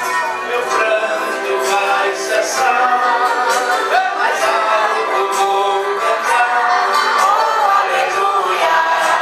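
A man singing a gospel song into a microphone, amplified through a sound system.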